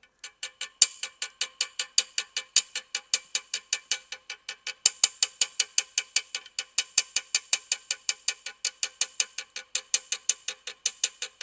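Small dent hammer tapping lightly and rapidly on a brass trombone slide tube supported on a steel dent rod, about six taps a second, each with a short metallic ring. The taps work the tube's crown high spots down against the rod to reshape the collapsed tube.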